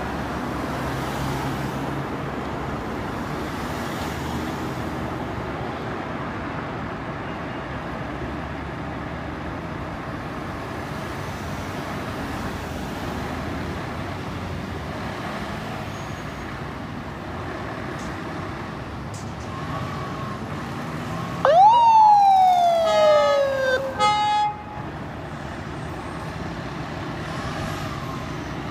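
Emergency-vehicle siren on a fire truck or ambulance leaving the station gives one loud whoop about three-quarters of the way in, jumping up in pitch and sliding down over a couple of seconds, then a few short chopped tones. Before and after it, a steady hum of idling diesel engines and passing traffic.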